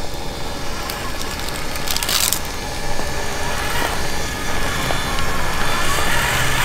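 Traxxas TRX-4 RC crawler driving slowly over loose dirt: a steady high whine from its electric motor and gears, with tyres crunching and crackling over dirt and small stones.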